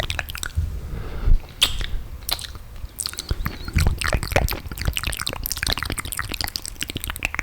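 Close-miked wet mouth sounds: dense, irregular saliva clicks, smacks and pops.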